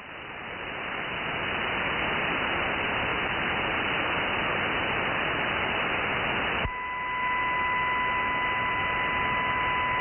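Shortwave radio static hissing through an upper sideband receiver, swelling up over the first couple of seconds after the pirate station leaves the frequency. About two-thirds of the way in, a click and then a steady whistle comes on and holds: a tone or carrier heard on the new frequency just before music starts.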